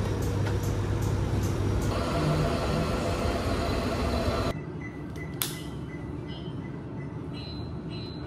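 Steady low machinery hum of a shop and a mall escalator, cutting off suddenly about four and a half seconds in to a quieter room, where there is a single sharp click about a second later.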